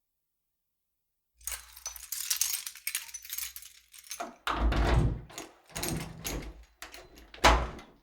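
Keys jangling and clicking in a door lock, then louder rattles and thuds of the door being worked, with a sharp clunk near the end. It starts after about a second and a half of silence.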